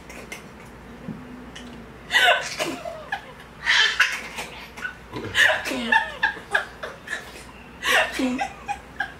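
A woman laughing in several short bursts.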